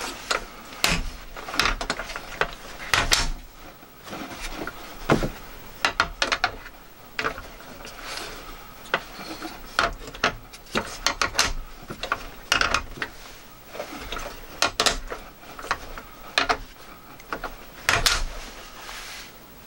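Hard plastic clicking, knocking and scraping as the hinged tilt stand of a plastic laptop cooling pad is worked up and down by hand and folded flat, with irregular clicks every second or so.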